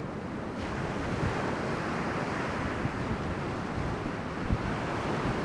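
Steady rush of breaking ocean surf, with stiff offshore wind on the microphone.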